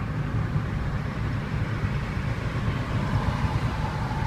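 Steady low vehicle rumble with a hiss of road noise, and a faint thin tone that comes in about three seconds in.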